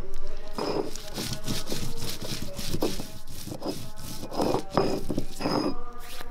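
Stone roller rubbed back and forth on a flat stone grinding slab, grinding curry leaves into a wet paste: repeated gritty scraping strokes, about two a second.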